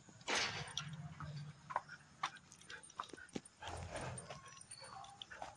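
A dog being walked on a metal chain leash: scattered short clicks and jingles, with brief small vocal sounds from the dog.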